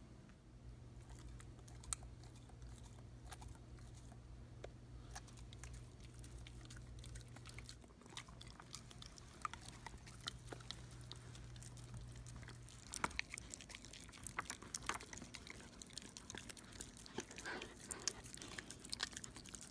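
A goldendoodle chewing and biting its food, a run of sharp wet clicks and smacks that come thicker and louder from about two thirds of the way through. A low steady hum sits under the first part and stops at about that point.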